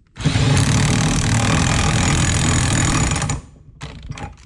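Pneumatic impact wrench hammering a hitch ball's nut tight onto the ball mount. It runs for about three seconds, stops abruptly, and a few faint clicks follow.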